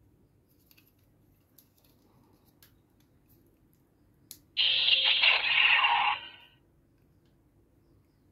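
Bootleg CSM Amazons Driver toy belt playing an electronic sound effect through its small built-in speaker for about two seconds, set off by a sharp click of its control just before.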